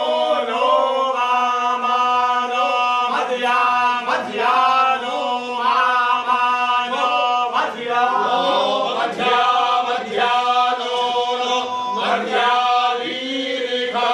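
A group of men chanting together in unison, steady held pitches moving syllable by syllable.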